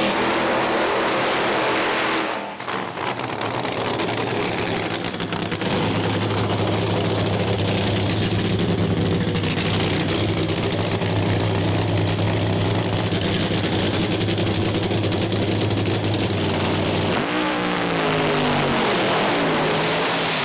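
Nitro funny car's nitromethane-burning 498 cubic inch Hemi V8 running loudly at high power down the drag strip. A steady drone, with a brief dip about two and a half seconds in and the pitch dipping and wavering near the end.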